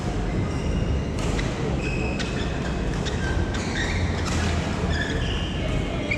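Steady rumble of a busy badminton hall, with sports shoes squeaking on the court floor in short chirps and sharp clicks of shuttlecocks being struck by rackets.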